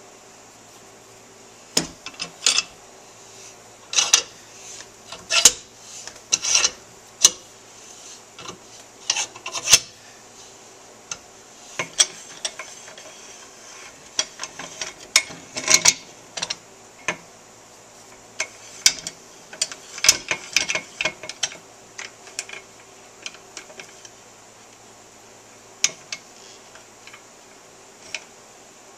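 Large steel C-clamp used as a bearing press, its screw wound by hand to drive a needle bearing into a motorcycle linkage rocker: irregular metal-on-metal scrapes and clicks, coming in clusters and thinning out toward the end.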